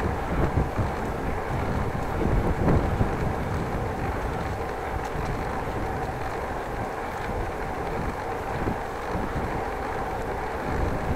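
Riding noise from a bicycle in motion: wind buffeting the microphone over a steady rumble of tyres on the pavement, with a faint steady whine throughout. A few louder low thumps come in the first three seconds.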